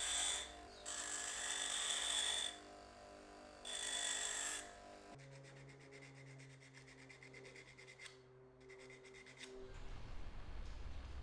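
Bench grinder running with a steady hum while the end of a steel pepper-mill shaft is pressed to the wheel in three bursts of grinding, tapering the shaft. After about five seconds, it gives way to the faint quick rasping strokes of sandpaper rubbed by hand on a small wooden piece.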